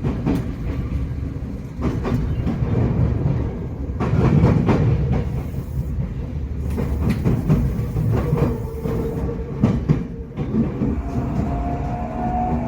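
Running noise inside a Tokyo Metro 8000 series car under way: low wheel-and-rail rumble with rail-joint clacks and a thin traction-gear whine that rises near the end. The car gives a muddy, discordant running sound that the uploader puts down to only one axle of the bogie having had its wheels re-profiled.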